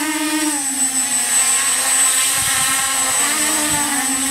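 Quadcopter motors and propellers humming steadily as the drone descends low over the ground, the pitch wavering slightly with the throttle.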